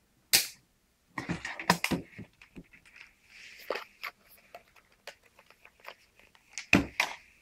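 Handling noise on a workbench: a sharp click about half a second in, a run of clicks and knocks a second later, and a loud knock near the end, with soft rustling between them.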